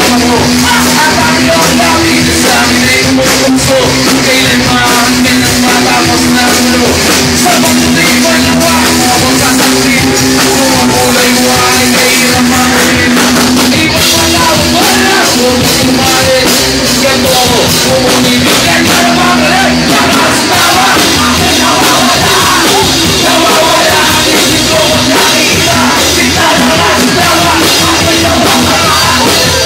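Filipino rock band playing loudly live, with drum kit and instruments. A held low note runs under the first two-thirds, and the sound grows busier after that.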